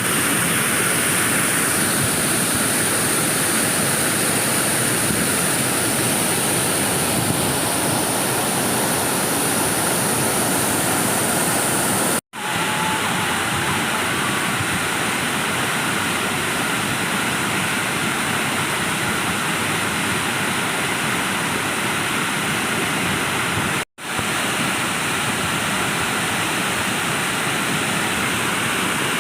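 Waterfall: a loud, steady rush of falling water that cuts out for an instant twice, about 12 and 24 seconds in.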